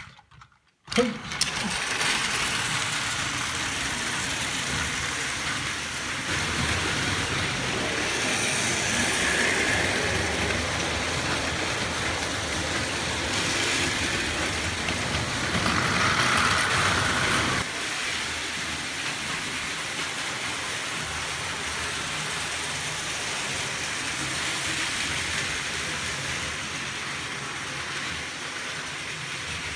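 Battery-powered Plarail toy trains, among them a Seibu 9000 series model, running on plastic track: a steady whir of small motors with the rattle of wheels over the track joints, starting about a second in. The sound thins abruptly about two-thirds of the way through.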